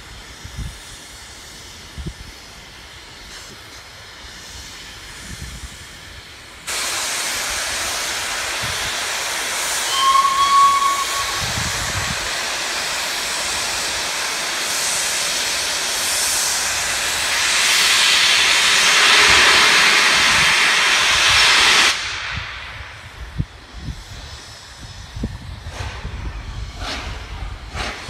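Peppercorn A1 Pacific steam locomotive 60163 Tornado blowing off steam: a loud, steady hiss starts abruptly about seven seconds in and cuts off suddenly some fifteen seconds later, with a brief whistle note about ten seconds in. Before and after the hiss there is only lower, uneven noise with scattered knocks.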